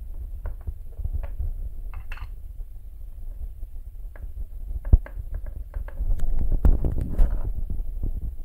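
Handling of a round metal watch tin: scattered light clicks and taps as the lid and tin are worked, with a sharper knock about halfway through and a busier run of taps after it, over a low rumble of hands rubbing on the phone.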